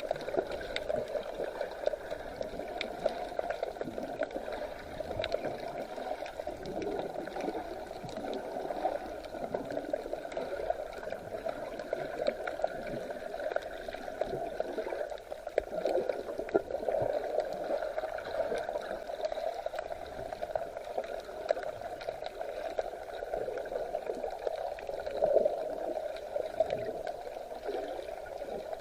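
Sea water gurgling and sloshing steadily, with faint small clicks scattered through it.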